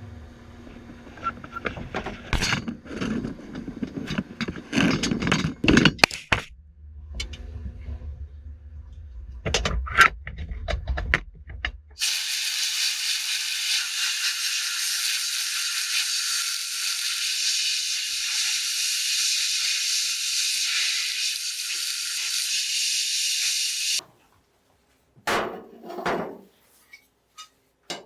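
Sandblaster blowing abrasive in a steady high hiss for about twelve seconds, stripping paint and rust from metal parts, then cutting off abruptly. Before it comes a stretch of clattering and knocking of metal parts being handled.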